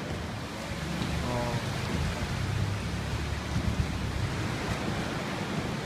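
Sea water sloshing and splashing around a small boat moving through a sea cave, with a steady low rumble underneath.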